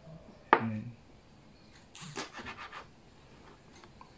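Knife cutting a tomato on a cutting board. There is one sharp knock of the blade on the board about half a second in, then a short run of scraping, rasping strokes around two seconds in.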